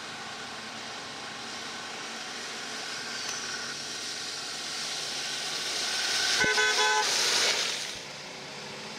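Jeep Grand Cherokee driving through mud ruts and water, the engine and splashing growing louder as it comes close and passes by. About six and a half seconds in there is a short car-horn toot.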